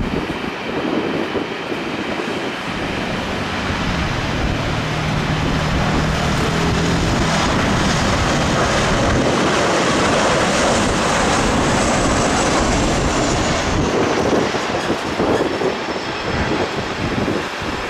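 Boeing 737-800's CFM56 jet engines on landing approach: a steady, loud jet roar with a high fan whine that falls in pitch as the airliner passes low and touches down. Wind buffets the microphone.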